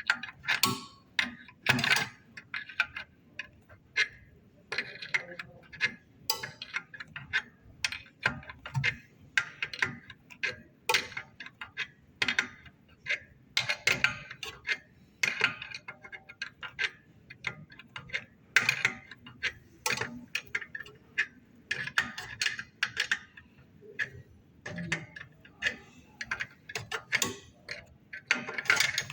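A 16 mm wrench tightening a new steam-boiler safety valve onto its fitting in an espresso machine: repeated short metallic clicks and taps of the wrench on the valve, irregular, about one to two a second.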